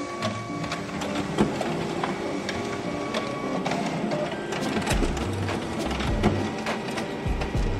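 Canon i-SENSYS MF754Cdw colour laser multifunction printer running a two-sided copy job: the document feeder draws the originals through while the print engine runs. Repeated clicks and clacks of paper handling sound throughout, with low thumps from about five seconds in.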